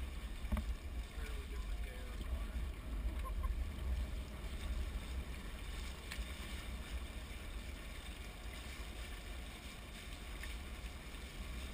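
Hobie 16 catamaran under sail: a steady rush of water along the hulls with wind rumbling on the microphone, and a few faint clicks.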